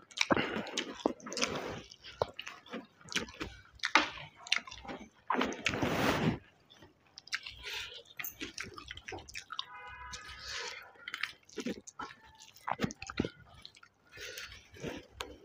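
Close-up sounds of a man eating mutton curry and rice by hand: wet chewing and lip smacks in an irregular run, mixed with squelching as his fingers knead the rice into the curry.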